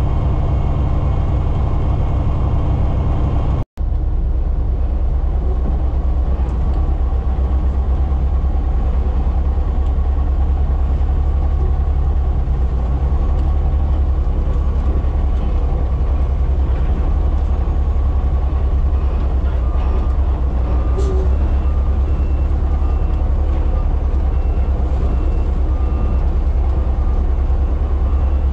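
Front-load garbage truck's diesel engine running steadily, heard from inside the cab, cutting out for an instant a few seconds in. From about twenty seconds in, a backup alarm beeps over and over as the truck reverses.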